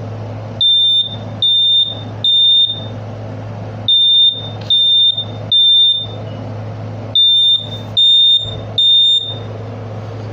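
Smoke alarm sounding its test signal after its test button is pressed: three groups of three short, high-pitched beeps, the standard temporal-three alarm pattern.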